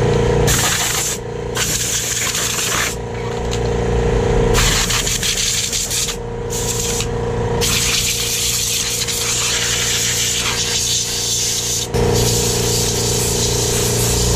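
Compressed-air blow gun blasting dust out of an opened laptop's mainboard and case, a loud hiss in repeated blasts with short breaks, then one long continuous blast through the second half. A steady hum runs underneath.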